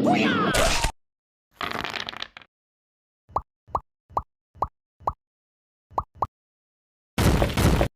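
Edited-in cartoon sound effects: a short noisy swish at the start and another about two seconds in, then seven quick bubbly pops over about three seconds, and a last noisy swish near the end.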